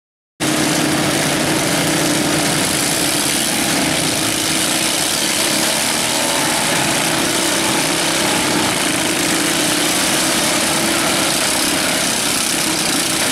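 Several riding lawn mower engines idling together in a steady, loud drone, starting abruptly about half a second in.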